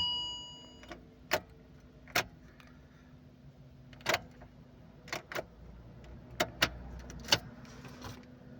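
About eight sharp, scattered clicks over a faint steady hum, with no engine cranking or running: the 2013 Chevrolet Caprice's starter does not respond.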